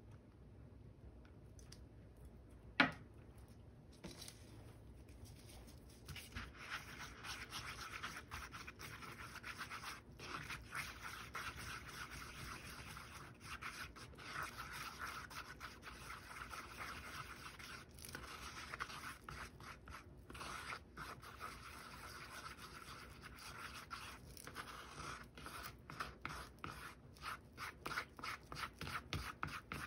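Wooden chopsticks stirring and scraping white liquid sealant around a paper plate, a steady run of quick scratchy strokes starting about six seconds in. A single sharp click about three seconds in is the loudest sound.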